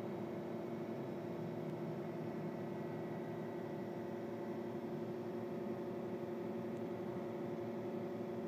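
Vertical milling machine running steadily, its spindle turning an engraving cutter into a metal plate: an even hum with several steady tones that holds without change.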